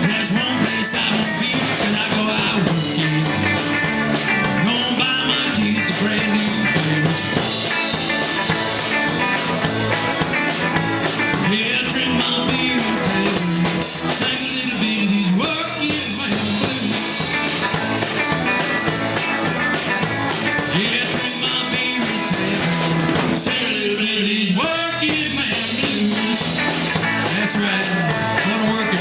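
Rock band playing a blues-rock song: guitar over a drum kit, with singing.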